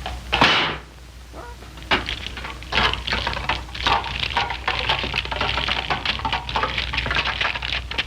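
A loud, short whooshing burst, falling in pitch, then continuous irregular clattering and rattling made of many quick clicks.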